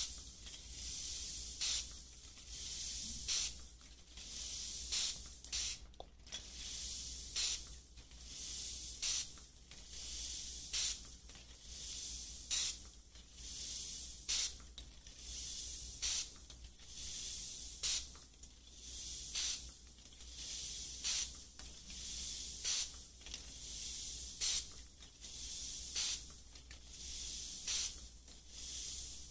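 Close-miked ASMR trigger sounds on a binaural microphone: a soft hissing swish repeating about every one and a half to two seconds, each opening with a sharp click.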